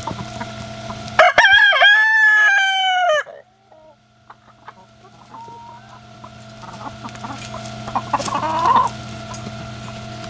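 A rooster crows once, about a second in, a loud call of about two seconds; afterwards the flock clucks quietly, with a shorter call near the end.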